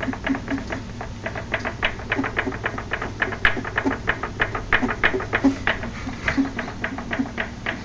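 Rapid, irregular light clicking from a vehicle's wheel and drivetrain as the wheel is rocked back and forth by hand in its free play without reaching either stop, over a steady low hum. The owner is unsure whether this clicking is normal.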